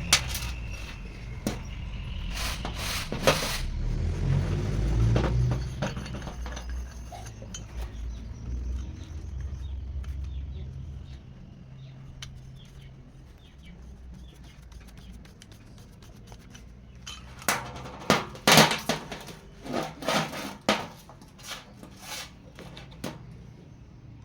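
A low rumble fades away over the first ten seconds or so. Near the end comes a cluster of sharp metallic clinks and knocks from metal pieces being handled.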